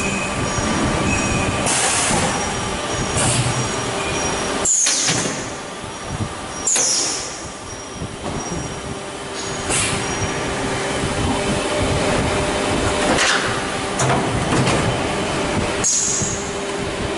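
Jasu G45 one-step injection stretch blow moulding machine running: a loud, steady mechanical din with a faint held tone underneath. Sharp hissing bursts break in every two to three seconds, some falling away in pitch.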